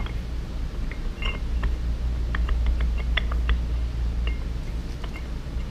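Light metallic clicks and clinks of ring gear bolts and a steel differential carrier being handled while the bolts are fitted, with a quick run of clicks around the middle. A steady low hum runs underneath.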